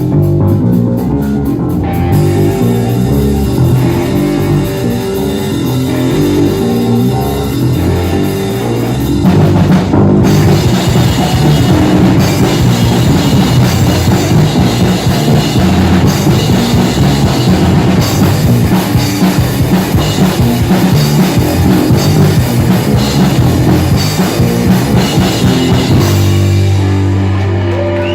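Rock band playing live: electric guitar, bass guitar and drum kit. About nine seconds in the band gets louder and fuller, and near the end it drops back to held bass and guitar notes.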